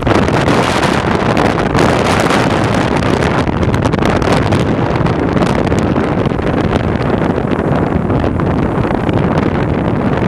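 Steady wind rushing over the microphone of a vehicle moving at highway speed, over the noise of the road and the surrounding traffic.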